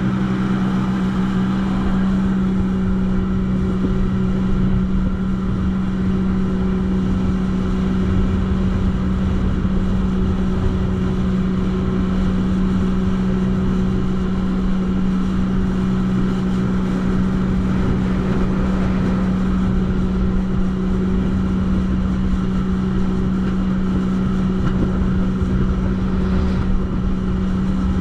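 Jetski (personal watercraft) engine running at a steady, unchanging pitch, with a rough low rush underneath.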